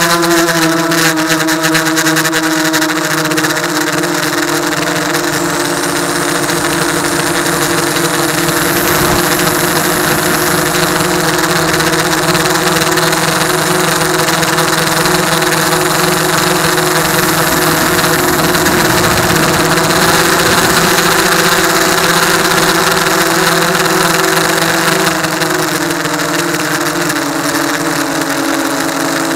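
F450 quadcopter's electric motors and propellers running at a steady whining hum with a hiss of rushing air, heard from the camera on board. The pitch dips slightly near the end.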